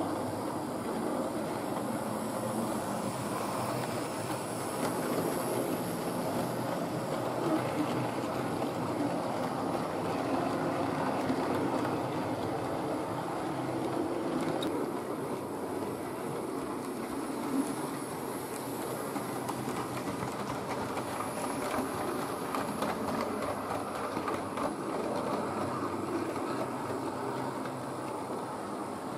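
OO-gauge model tank locomotive hauling a short rake of goods wagons around a layout: the small electric motor whirs steadily while the wheels rattle and click along the track.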